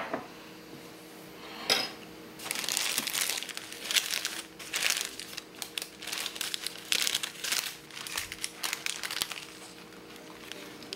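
Paper wrapper of a sandwich crinkling and rustling in irregular bursts for several seconds as the sandwich is picked up and handled, after a sharp click at the start.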